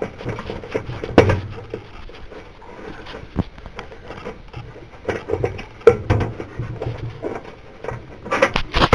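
Scraping, rubbing and small clicks of fingers working a wire's push-on connector back onto the terminal of a thermal cutoff switch on a sheet-metal panel, with a few sharper knocks, the loudest near the end.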